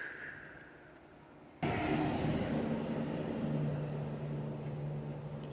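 An engine running steadily: a low hum with a rushing noise behind it, cutting in suddenly about one and a half seconds in.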